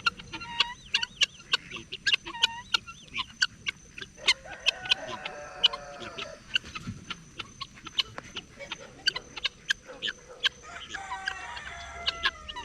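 Chickens clucking and calling, with a run of sharp clicks several times a second throughout.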